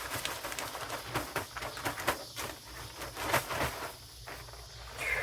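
Irregular crunching and scraping, two or three sounds a second, of hands-on work in wet sand and gravel.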